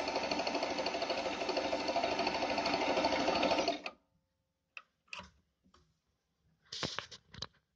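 Pfaff 294 sewing machine stitching at a steady speed, with a fast, even rhythm of stitches, then stopping abruptly about four seconds in. A few short clicks and rustles follow.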